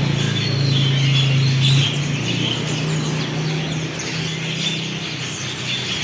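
Many caged songbirds chirping and twittering together, over a steady low hum.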